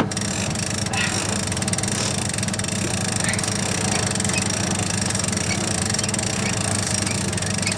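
A yacht's inboard diesel engine running steadily, with the rapid clicking of a deck winch being cranked to hoist the mainsail.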